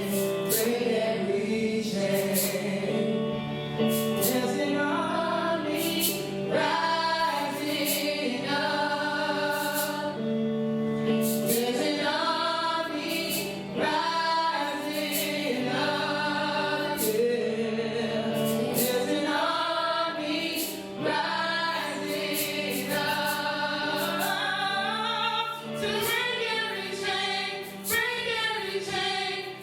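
Gospel worship music: voices singing together over a band, with a steady drum beat.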